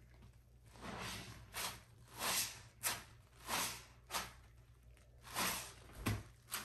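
Hands squeezing foam-soaked sponges loaded with sudsy pine cleaning paste: a run of about eight wet, foamy squelches, some drawn out and some short and sharp.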